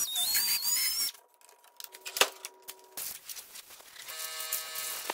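Small high-speed rotary tool whining as it grinds into a plastic dash bezel, its pitch wavering and rising before it stops about a second in. After that come a few light clicks and one sharp knock as tools are handled, with a faint steady hum near the end.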